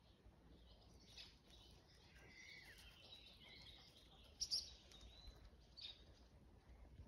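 Quiet background with faint bird chirps and twittering, and one short, louder high-pitched sound about two-thirds of the way through.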